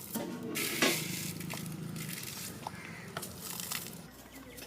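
Hot mustard-seed and curry-leaf tempering in sesame oil crackling as it is scooped into coconut chutney, with light clicks of a spoon against the vessel. It starts about a second in and dies away near the end.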